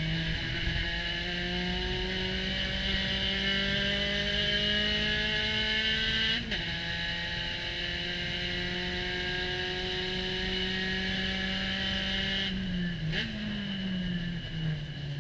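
Spec Racer Ford Gen3's 1.6-litre four-cylinder engine heard from the cockpit at full throttle, revs climbing in third, a quick upshift to fourth about six and a half seconds in, then climbing again. Near the end it drops off as the throttle is lifted for braking, with a short rev blip on the downshift back to third.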